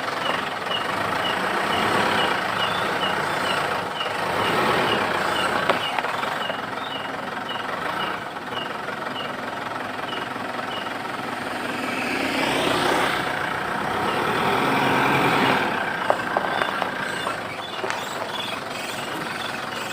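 Mitsubishi Pajero in gear, with a short high squeak repeating a few times a second, like a mouse or shrew, over the running engine. The engine noise swells for a few seconds past the middle, and the squeaks return near the end. The mechanic suspects a worn universal (cross) joint on the propeller shaft.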